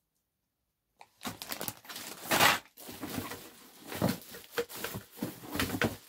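Clear plastic bag crinkling and rustling, with quick irregular clicks, as a bag of small plastic bird drinkers is handled and opened; it starts about a second in.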